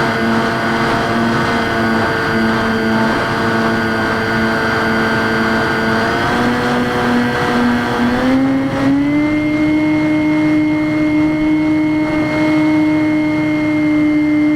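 Electric motor and propeller of a Skywalker X5 flying wing running in flight: a steady whine that rises in pitch between about six and nine seconds in, as if throttled up, and then holds, over a hiss of rushing air.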